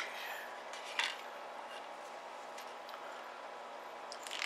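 Lead No. 6 birdshot clinking in a small ceramic bowl: two sharp clinks about a second apart, then the pellets start to rattle and pour off the bowl's rim near the end.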